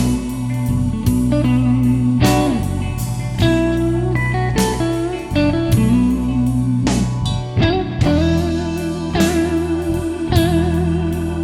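A recorded blues song plays through an instrumental break. A lead guitar holds sustained notes with vibrato and bends between them, over steady bass and drums.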